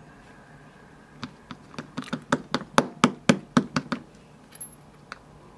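Brass Schlage Everest lock cylinder being knocked to shake its pin stack out of the chamber. A quick run of sharp taps starts about a second in and stops near four seconds, about four or five taps a second.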